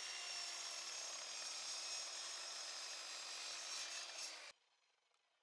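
Power saw cutting through wood, a dense rasping noise with a steady whine under it. It cuts off sharply about four and a half seconds in, leaving a faint fading run-down.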